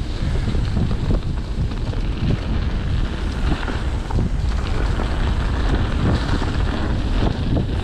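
A mountain bike riding down a dirt trail, with wind buffeting the microphone. It is a steady low rumble, with frequent short clicks and rattles from the bike and its tyres.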